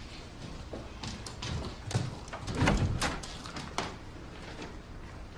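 A door being opened and shut: a run of clicks and knocks, the loudest a low thump near the middle.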